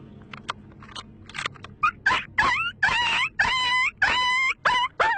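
A wild canine yelping in a run of about eight loud, rising cries that start about two seconds in and grow longer, with a few faint clicks before them.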